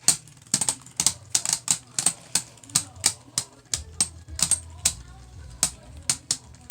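Two Beyblade Burst spinning tops clashing in a plastic Beystadium: a rapid, irregular run of sharp clicks as they knock against each other and the stadium wall, several a second.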